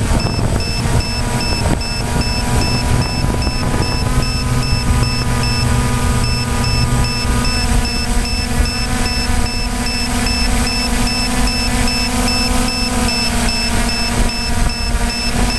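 DJI Phantom quadcopter's motors and propellers buzzing steadily in flight, heard close up from the camera mounted on the drone. The pitch shifts slightly a few times as the motors adjust. A faint train of evenly spaced high electronic pips runs over it.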